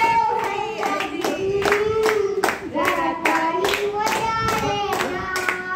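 A young child singing into a handheld microphone, with steady hand clapping kept in time with the song.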